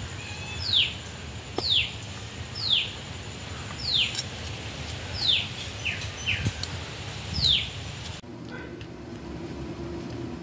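An animal's short high call, repeated about once a second, each call sliding down in pitch. It stops abruptly about eight seconds in, giving way to a steady low hum.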